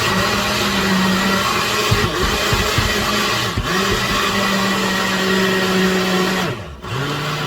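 Electric blender motor running loud and steady as it purées tomatoes, cucumbers and green peppers. It dips briefly a couple of times, then cuts out for a moment near the end and comes back at a lower pitch.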